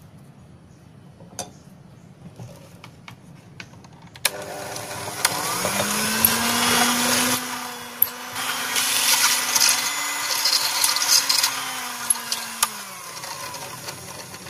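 Electric hand mixer beating butter and sugar in a glass bowl: it starts suddenly about four seconds in, its motor whine rising in pitch as it speeds up, then holding steady, with a few sharp clicks of the beaters against the bowl. The motor note falls away near the end.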